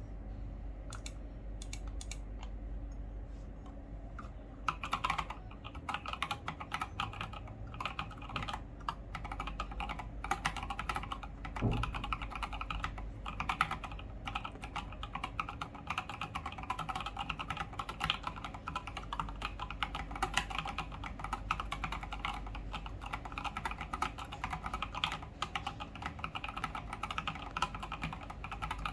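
Typing on a mechanical keyboard: an Atlas board with a brass plate, Gateron Fei Matcha Plus switches and SA-profile keycaps. A few scattered keystrokes at first, then steady fast typing from about five seconds in.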